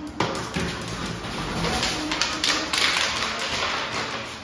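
A dense run of quick taps and crackles from a black Labrador at play on a hard floor. It starts sharply just after the start, is busiest in the middle, and fades near the end.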